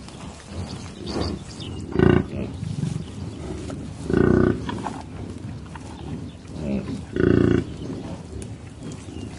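Bison grunting low three times, a few seconds apart, the middle grunt the longest. Quieter sniffing and grass-chewing sounds fill the gaps.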